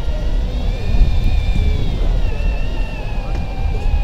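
Electric fishing reel's motor whining as it winds line, wavering slowly in pitch, over a steady low rumble of boat engine and wind.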